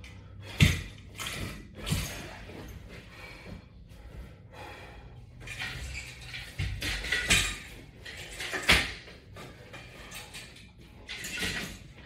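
Knocks and clatter of resistance-band exercise gear being handled: a bar with metal clips and chains picked up and set in place, with rustling in between. The two loudest knocks come just under a second in and about nine seconds in.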